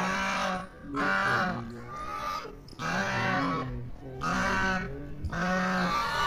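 Domestic geese calling: a run of about six harsh, nasal honks, each under a second long and roughly a second apart.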